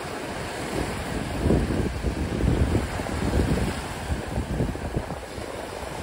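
Wind buffeting the microphone in uneven low gusts, over a steady hiss.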